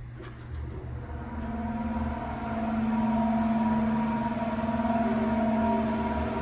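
Westinghouse traction elevator's hoist motor starting up and running, its bone-dry motor bearings making a steady metal-on-metal scraping whine that swells over the first few seconds, a sign the bearings badly need lubrication.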